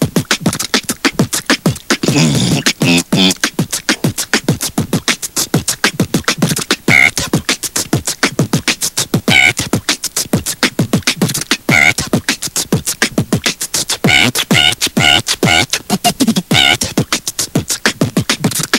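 Beatboxing: a fast, steady run of mouth-made percussive beats, with a few short pitched vocal sounds mixed in.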